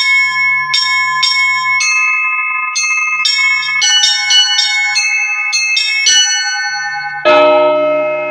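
Russian Orthodox church bells: small, high-pitched bells struck in a quick, rhythmic pattern of about two strikes a second, joined near the end by a louder, deeper bell that rings on.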